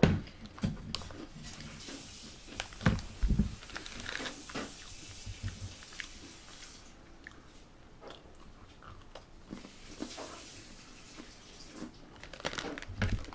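A person eating close to the microphone: irregular crunchy bites and chewing.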